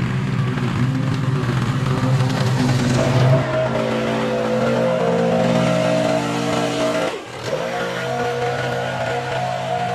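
A Husqvarna riding mower engine running steadily, then, about three seconds in, the steady drone of a backpack leaf blower. The blower drops briefly in pitch and level about seven seconds in, then picks up again.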